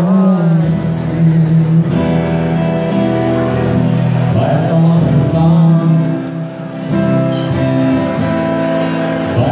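Acoustic guitar strummed live with a man singing over it.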